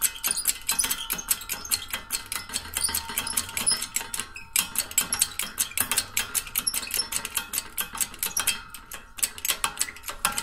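Hydraulic shop press being pumped, its ram pushing down on a socket to press the old bushing out of a control arm: a steady run of rapid metallic clicks.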